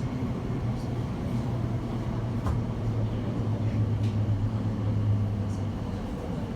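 Elizabeth line Class 345 train heard from inside the carriage as it runs through the tunnel: a steady rumble of wheels on rail under a low motor hum that fades out near the end.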